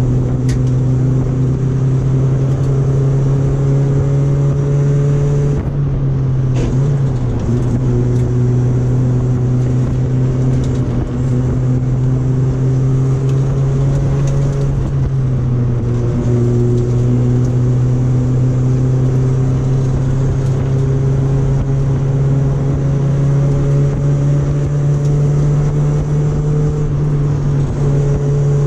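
Honda Civic EF2's single-carburettor D15B 1.5-litre four-cylinder engine running under load, heard from inside the cabin. Its note climbs slowly as the car pulls and dips twice, about six and sixteen seconds in, before climbing again.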